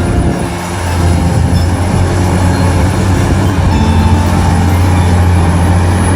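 A large vehicle running with a steady, heavy rumble and a low hum.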